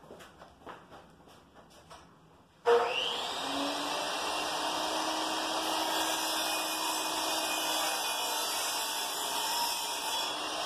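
A few faint clicks, then about two and a half seconds in an electric power tool motor switches on abruptly, spinning up with a brief rising whine, and runs steadily with a low hum beneath the noise.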